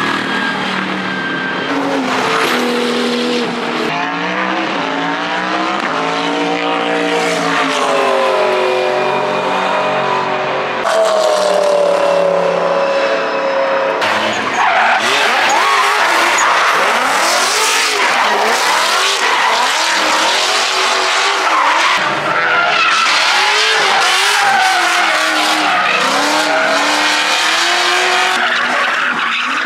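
Race car engines rising in pitch and shifting, then drift cars sliding with tire squeal while their engine revs jump up and down.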